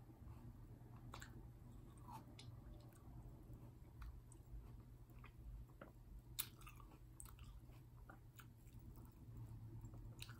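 Faint chewing of grapes: scattered small wet clicks from the mouth, with one sharper click about six seconds in.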